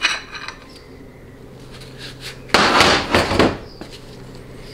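Transmission clutch parts handled on a workbench: a short metallic clink with a brief ring at the start, then about a second of loud clattering and scraping about halfway through as the cast-iron clutch drum and plates are moved and set down.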